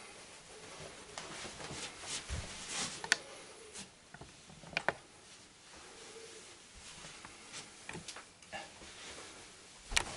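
Hands rubbing and pressing on a person's shoulders through a knitted sweater: faint rustling of cloth and skin, with a few scattered sharp clicks and taps, the sharpest about three seconds in.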